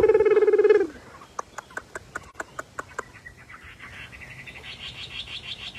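Chinese hwamei singing: a run of sharp clipped notes, about six a second, then a fast high trill that grows louder toward the end. A loud buzzy call, the loudest sound, fills the first second.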